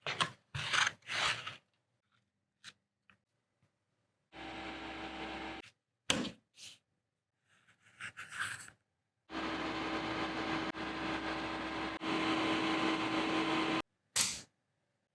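Woodworking at a bench: a small electric tool runs steadily with a constant hum in two stretches, the second one long, broken by short scraping and rubbing sounds on wood.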